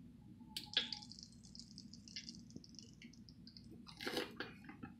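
Ranch dressing squirted from a plastic squeeze bottle onto a plate: a small click, then about three seconds of soft, stuttering squirting, with a louder sputter about four seconds in.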